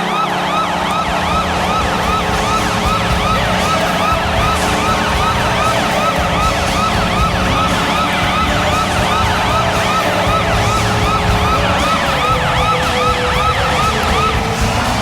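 Washington Capitals arena goal horn sounding a deep, steady tone under a rapid yelping siren that whoops about three times a second. The siren stops near the end.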